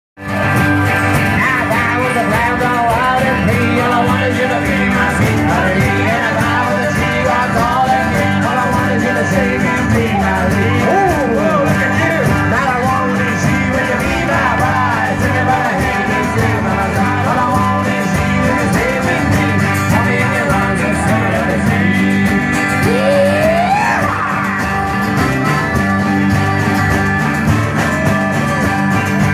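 A live band playing amplified music through a PA, with guitars, harmonica and singing.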